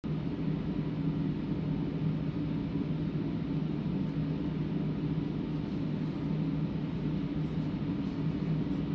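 Steady hum of a room ventilation system: a low droning tone over an even hiss of moving air.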